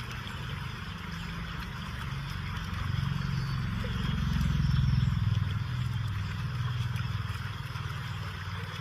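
Waterfall rushing steadily, with a low rumble that swells and then fades a little around the middle.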